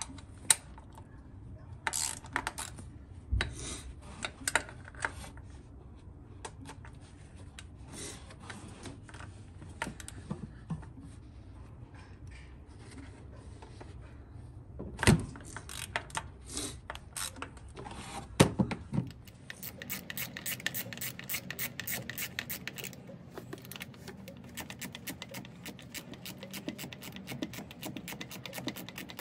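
Ratchet with a 13 mm socket working a thermostat-housing bolt: scattered clicks and knocks as the tool is fitted and handled, then, about two-thirds of the way through, a steady run of ratchet clicks as the bolt is turned.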